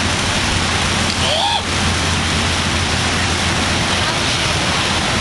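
Electric hair clippers running steadily as a low hum under a loud, even hiss. A brief high voice sounds about a second and a half in.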